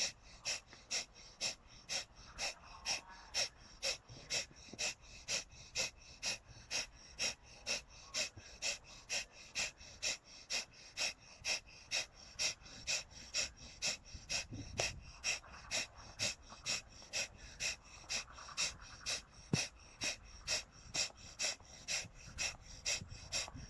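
Breath of fire: a woman's quick, forceful exhalations through the nose, evenly paced at about two a second, each a short huff.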